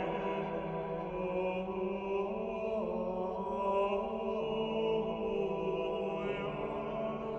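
Small vocal ensemble singing slow, chant-like polyphony: several voices holding long notes over a low sustained tone, moving to new notes every second or two.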